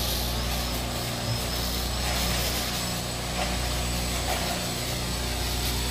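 Homebuilt quadcopter's four electric motors and propellers running at a steady whir while the craft sits on the grass on its first test run.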